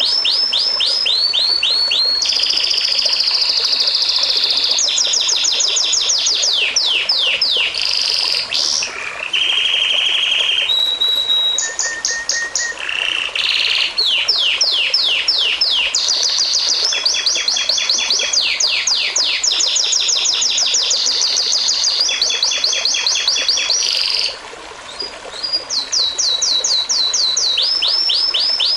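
A songbird singing a long, fast, varied song of rapidly repeated notes and rolling trills, with a brief break near the end.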